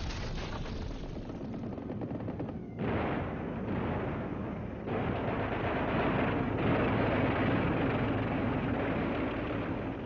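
Air-raid battle soundtrack: dense rapid gunfire like machine-gun and anti-aircraft fire, getting louder in steps about three and five seconds in.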